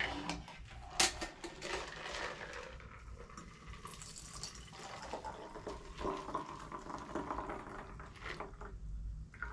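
A shaken cocktail strained from a metal shaker tin into an empty rocks glass: a thin stream of liquid pouring and trickling into the glass, with one sharp click about a second in.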